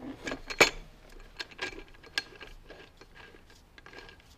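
Scattered sharp metallic clicks and taps of bolts and an aluminium MAF sensor adapter flange being handled and fitted by hand, the loudest click about half a second in, then fainter ticks.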